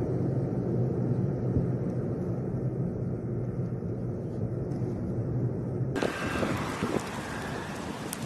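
Blizzard field-recording ambience: a low, steady rumble, then an abrupt change about six seconds in to a brighter rushing hiss of wind buffeting the microphone.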